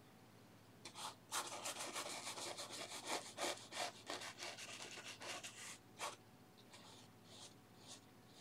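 Paintbrush scrubbing oil paint onto coarse-textured canvas: a quick run of short rubbing strokes, several a second, from about a second in until about six seconds, then a few slower, softer strokes.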